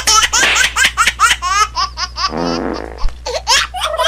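Laughter: rapid, high baby-like giggling, with a deeper laugh about two and a half seconds in, over a steady low hum.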